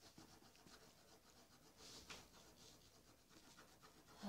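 Faint scratching of a coloring tool stroking across paper as a drawing is filled in, with a few slightly louder strokes about two seconds in.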